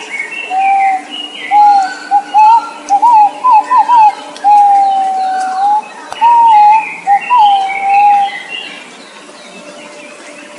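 A bird, the one called นกเป้า in Thai, calling a series of clear whistled notes, some short and wavering, one long steady whistle in the middle, with fainter higher chirps above; the calling stops near the end.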